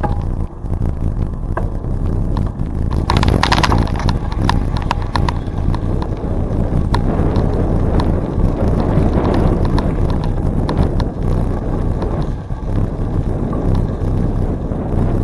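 A bicycle rolling along a trail: a steady low rumble of wind on the microphone and tyre noise, with frequent clicks and rattles from the bike, a denser burst of rattling about three seconds in.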